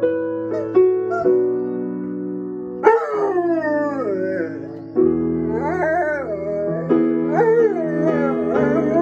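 Rhodesian ridgeback howling along to piano chords: a long howl sliding down in pitch about three seconds in, then wavering, rising-and-falling howls from about five seconds on, over the sustained piano.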